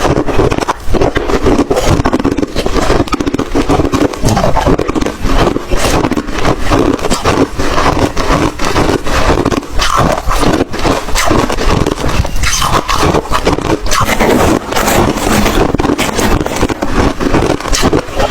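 White ice being bitten and chewed, giving a dense, continuous run of crunches and cracks.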